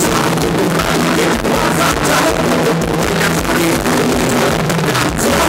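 A live band plays ramwong dance music loud through the stage PA, with a drum kit keeping a steady beat.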